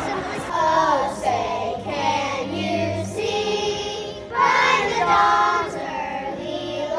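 A group of young children singing a song together, with steady low notes underneath.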